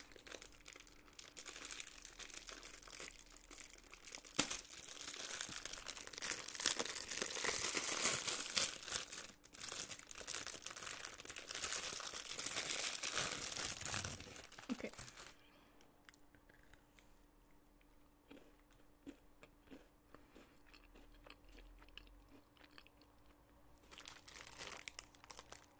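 Crinkling and tearing of a stroopwafel pack's wrapper for about fifteen seconds, then faint chewing of a bitten stroopwafel.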